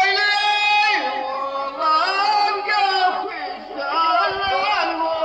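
A man's high voice singing Amazigh poetry in the rways style, drawing out long notes that bend in pitch, with short breaks between phrases.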